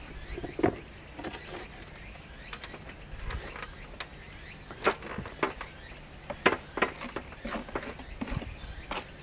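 A steel plastering trowel scraping and tapping as mortar is scooped from a bucket onto a hawk board and spread onto metal lath mesh. The sound is a string of irregular sharp scrapes and clicks, bunched more closely in the second half.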